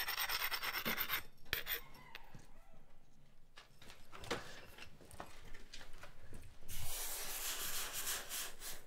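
A rasping scrape of a rubbing block against a hot steel chisel bar on the anvil, scrubbing off scale so the temper colours can be watched running toward the edge. The scraping lasts about a second, followed by a few light knocks, and another long stretch of scraping hiss comes near the end.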